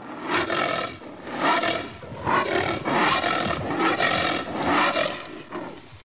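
Anteater growling in a series of rough pulses, about seven in six seconds, starting suddenly out of silence.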